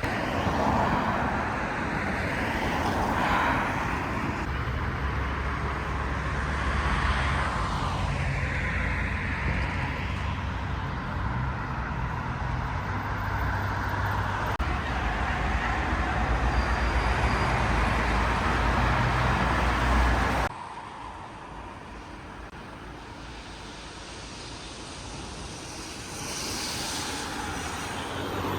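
Road traffic noise: vehicles passing with a steady engine and tyre rumble and a few gliding whines. The sound drops off abruptly about twenty seconds in, leaving a quieter background.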